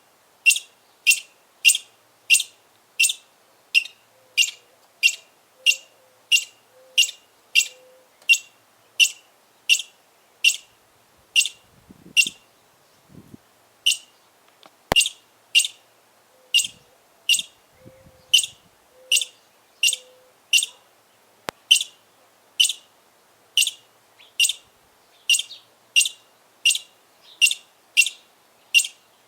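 Squirrel chirping: short, sharp, high-pitched alarm calls repeated about one and a half times a second, loud, with a pause of about two seconds near the middle.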